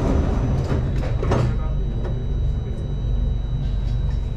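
Singapore MRT train's sliding passenger doors shutting, with a few knocks, the loudest about a second and a half in, over the steady low hum of the standing train.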